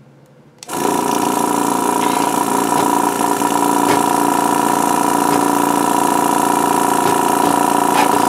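Hakko 470 desoldering station's vacuum pump switched on by the gun's trigger about a second in, then running steadily as a loud, even hum with a strong high tone. Its suction is weak because its valve plates are broken.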